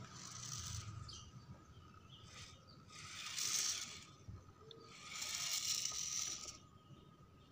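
Electric motor and gear drivetrain of a 1/10-scale RC rock crawler running in short bursts of whirring hiss as it climbs over a rock, the two loudest about three and five seconds in. A faint steady high tone runs underneath.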